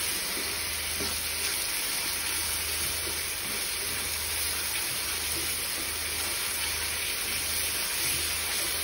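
Chopped chilli paste sizzling steadily in hot oil in a frying pan as it is stirred with a spatula.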